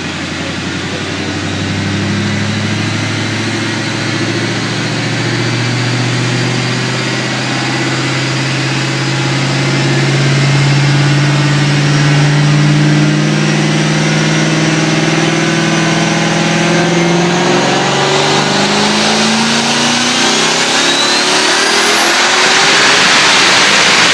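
Twin-turbocharged 5.0 V8 of a 2011 Mustang GT running on E85 at about 21 psi of boost, pulled in one long wide-open-throttle run on a dyno. The engine note climbs slowly and steadily in pitch and loudness, then rises faster near the end, where a high turbo whine climbs with it.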